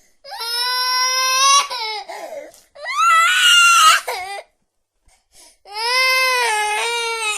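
Baby crying: three long, high-pitched wails with short breaks between them.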